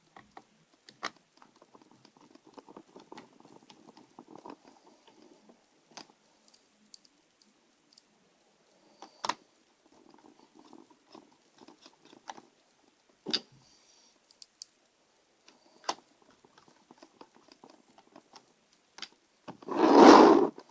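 Small screwdriver driving screws into a laptop's plastic bottom cover: faint scratchy turning with a sharp click or tap every few seconds. A louder, brief rustling knock near the end.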